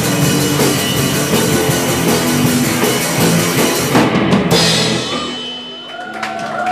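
Live rock band (drum kit, electric guitars and bass) playing loud, then stopping about four seconds in to end the song. Ringing notes hang on after the stop, and the first scattered claps come in near the end.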